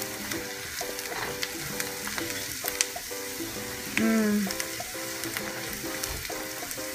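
Onions, tart cherries and almonds sizzling in a stainless steel skillet while a spatula stirs them, clicking and scraping against the pan. Background music with a steady repeating pattern of notes runs underneath, and there is a brief louder pitched sound about four seconds in.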